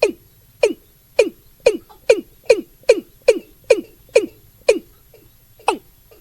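Watercock calling: a series of about a dozen short, hollow notes, each dropping sharply in pitch. The notes speed up to about two or three a second, then slow, with a pause near the end.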